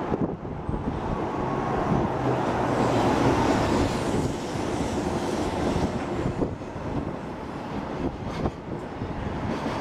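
A JR Freight EH200 electric locomotive hauling a container freight train rumbles past, followed by its rolling container wagons. The noise is loudest in the first half as the locomotive goes by, with a few sharp clicks later on.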